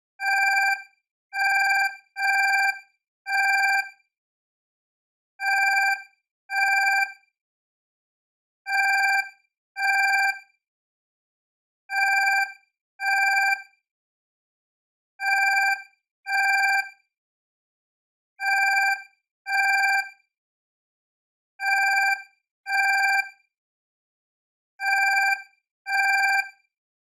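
Alarm clock going off: a steady pitched electronic beep, about half a second long, sounding in pairs that repeat roughly every three seconds.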